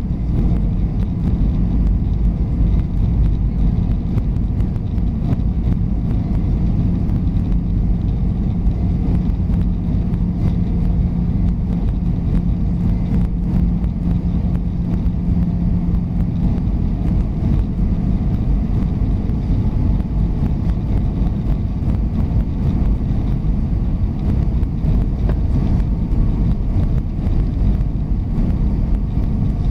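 Airbus A320 cabin noise during the descent: a steady, loud low rush of airflow and engine noise, with a low steady hum on top that fades out a little past halfway.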